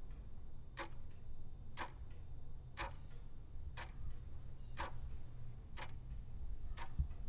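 Clock-tick sound effect counting down a quiz timer, one tick every second, over a steady low hum.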